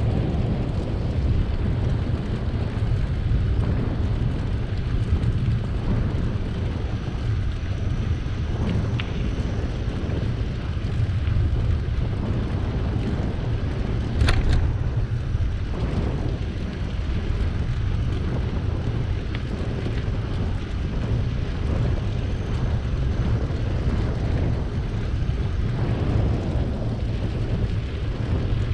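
Steady low rumble of wind on the microphone and bicycle tyres rolling along the path while riding, with one sharp click about halfway through.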